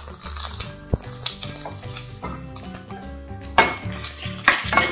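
Sliced onion sizzling in hot oil in a nonstick wok, with a spoon stirring and clattering against the pan near the end. Background music plays underneath.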